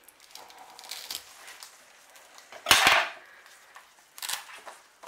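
Scraping and clinking as a knife is worked into a Cymbidium orchid's pseudobulbs to cut away a rotted one. The loudest scrape comes about three seconds in, with a shorter one a little over a second later.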